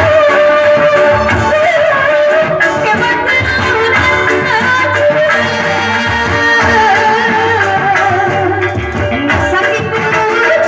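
Sundanese pop song: a singer's melody with long held, sliding notes over instrumental backing and a low beat.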